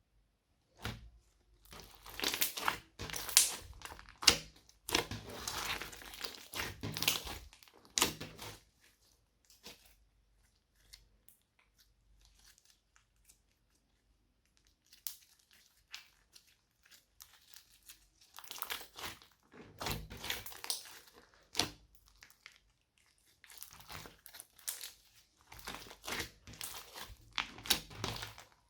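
Hands squishing and stretching slime with things mixed into it, making crackly, crinkly sounds in bursts, with a quiet pause partway through.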